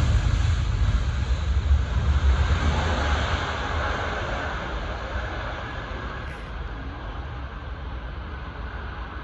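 Jet airliner engines roaring, swelling briefly and then slowly fading as the aircraft draws away, with low wind rumble on the microphone.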